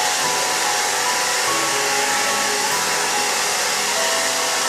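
Handheld hair dryer blowing a steady hiss of air into a cat's wet fur, with light mallet-percussion music in the background.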